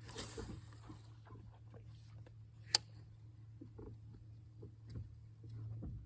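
Small knocks and handling noises in a fishing boat over a steady low hum, with one sharp click about three seconds in.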